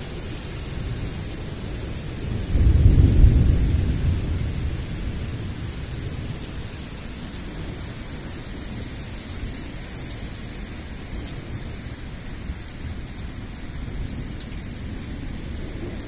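Heavy rain falling steadily in a thunderstorm. A loud, low rumble of thunder starts about two and a half seconds in and dies away over the next couple of seconds.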